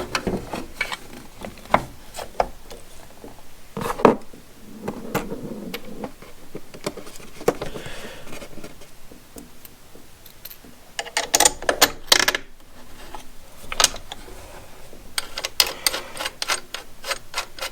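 Scattered clicks and knocks of hard plastic parts and small bolts being handled as a string trimmer's guard is fitted, with quick clusters of clicks a little past the middle and near the end.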